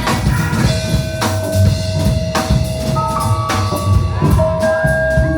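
Rock band playing live, an instrumental passage: a steady drum-kit beat with bass and snare drum under long held tones.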